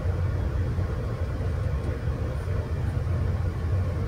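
Steady low hum of shipboard machinery, unchanging throughout, with a faint higher steady tone above it.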